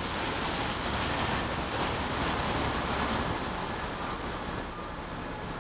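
Steady wind rush on a bicycle helmet camera's microphone while riding on a wet road, over the low rumble of slow, queuing city traffic.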